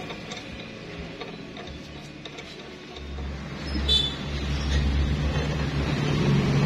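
A low, steady mechanical rumble, like a running engine, comes in about three seconds in and grows louder. A short metallic clink, a steel rod touching the end of the threaded clamp screw, comes about four seconds in.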